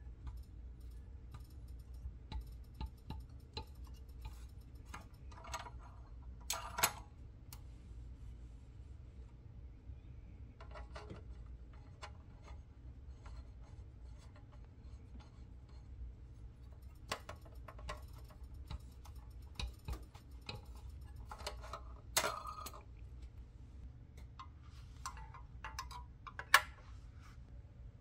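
Small metal clicks and ticks as a C-clamp's sliding T-handle screw is turned by hand against a pressed-steel toy bulldozer body, with a few louder clinks.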